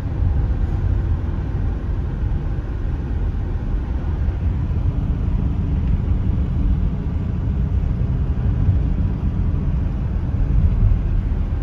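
Steady low rumble of a U-Haul moving truck being driven at road speed, heard from inside the cab: engine and tyre noise.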